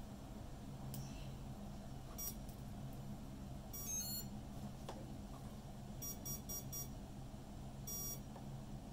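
Short high-pitched electronic beeps from an electronic speed controller as it powers up, sounded through the converted alternator's stator windings: a few single beeps and a quick run of four, over a steady low hum.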